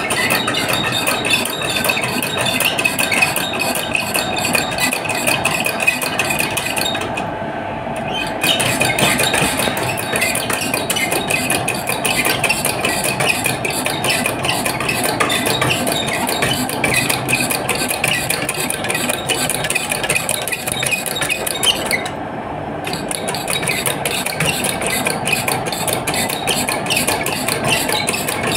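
Machinery running with a steady, dense metallic clatter of rapid clicks. The high rattle drops out briefly twice, about a quarter of the way in and again near three-quarters.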